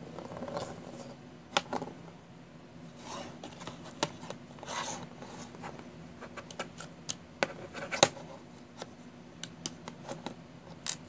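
Tenth Doctor sonic screwdriver replica being handled against a hard surface: parts of plastic and metal rubbing and scraping together, with many sharp clicks and taps, the loudest about eight seconds in and near the end.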